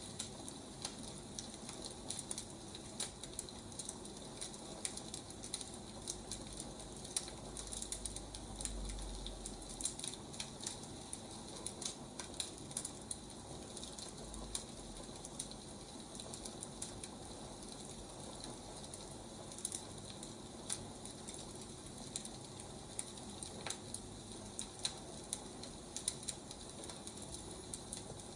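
Firewood fire crackling: irregular sharp pops and snaps over a steady hiss.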